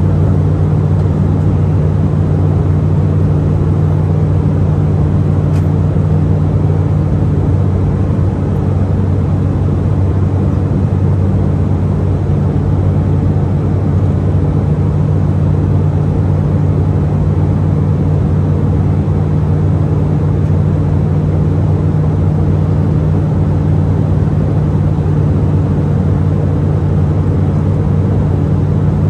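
Steady drone of an Embraer E190's GE CF34-10E turbofan engines heard inside the cabin beside the wing during the climb-out, a loud even rush with several low hums held steady underneath.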